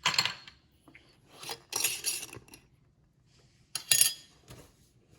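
Ice cubes and a glass jar with its lid clinking and clattering, in three short bursts: right at the start, a longer rattle about two seconds in, and a sharp clink about four seconds in.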